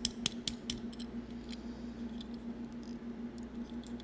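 Small clicks and taps of fingers and fingernails handling a metal diecast model car, prying at its hood to try to open it; a quick run of clicks in the first second, then scattered ones. A steady low hum runs underneath.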